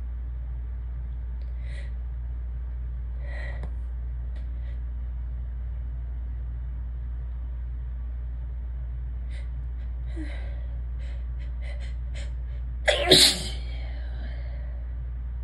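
A person's sneeze buildup: a few soft catching breaths, then a quicker run of short gasps, and a single loud sneeze about thirteen seconds in with a trailing voiced sound. A steady low hum runs underneath.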